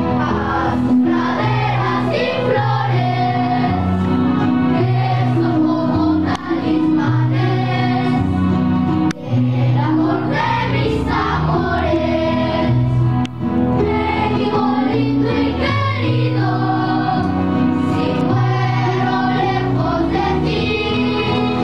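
A group of voices singing a song together over an instrumental accompaniment with steady, held bass notes.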